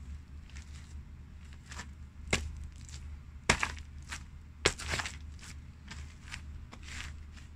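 Pumpkin flesh, rind and seeds being crushed underfoot by hard-soled loafers: a run of crunches and crackles with three sharp cracks, about two, three and a half and nearly five seconds in. A steady low hum runs underneath.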